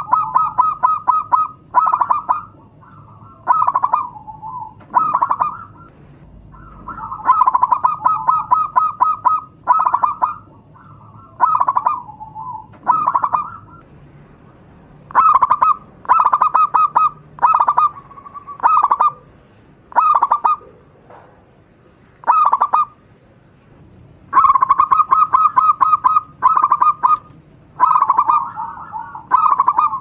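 Local Javanese zebra dove (perkutut) singing: repeated coo phrases, each a quick run of staccato notes, with short pauses between phrases.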